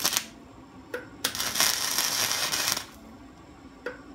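Electric arc welding a hex nut onto a bolt head, fill-welding it to the bolt. A short burst of arc crackle at the start and a brief one about a second in are followed by a steady run of about a second and a half, then another brief burst near the end.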